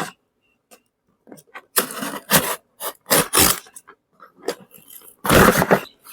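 A parcel's packaging being torn and scraped open by hand, in a few short bursts with pauses between them; the loudest comes near the end.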